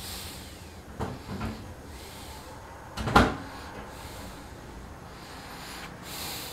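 A few knocks: two light ones about a second in, then one louder thump about three seconds in.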